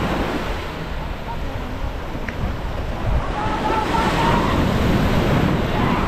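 Sea waves breaking and washing up a sandy beach, with wind buffeting the microphone; the surf swells louder in the second half. Faint voices of people are heard briefly about halfway through.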